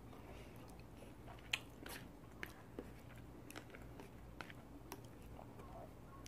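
Faint chewing of a mouthful of sauce-softened fried food, with a few short sharp mouth clicks scattered through, the loudest about a second and a half in.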